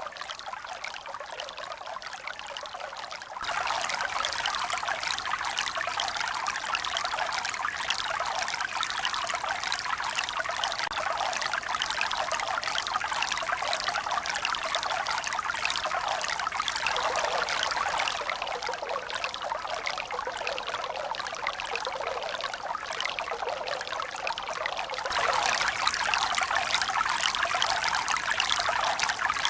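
Steady rushing of running water, with sudden jumps in loudness about three seconds in and again near the end.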